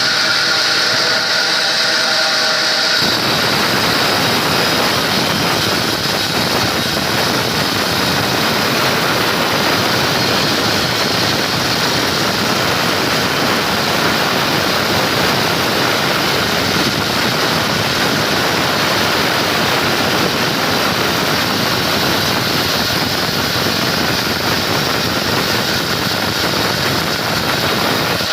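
Sawmill saw running, then cutting into wood about three seconds in: a steady, loud, hissing cut that holds for the rest of the time.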